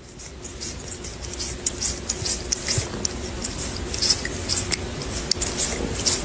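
A cat licking and nibbling at a cheese cracker: a busy run of small wet clicks and crunches that grows denser as it goes.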